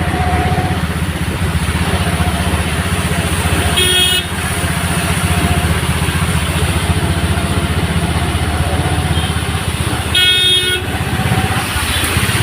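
Road traffic with a steady engine running close by, and two short honks of a vehicle horn, about four seconds in and about ten seconds in.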